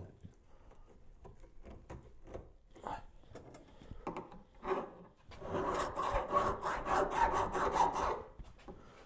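Hand file scraping across copper wire inlaid in a walnut board, filing the wire down flush with the wood. A few light, scattered strokes at first, then about five seconds in a louder run of quick back-and-forth strokes.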